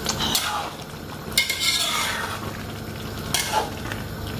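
A slotted spatula stirring through pilau rice in a large metal pot, scraping in a few separate strokes about one to two seconds apart, over a steady hiss of the rice's remaining cooking liquid simmering as it reduces.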